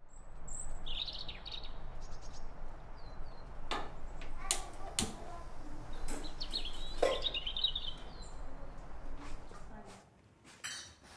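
Small birds chirping in two short bouts, about a second in and again around six to seven seconds, over a steady low background hiss. A few sharp clicks and knocks fall in between.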